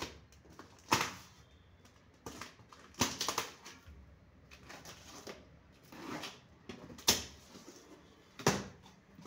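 Cardboard shipping box wrapped in plastic film being torn open by hand: a series of sharp crinkles, rips and flap knocks, loudest about a second in, around three seconds in, about seven seconds in and again near the end.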